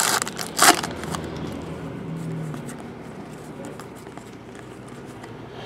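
Foil trading-card pack wrapper crinkling and tearing open in two quick bursts near the start, then quieter rustling of cards being flipped through by hand.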